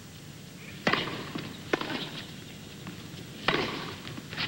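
Tennis ball struck by racquets during a rally: a serve and the returns that follow, three sharp hits spaced about a second or more apart, the last the loudest, over a low steady stadium background.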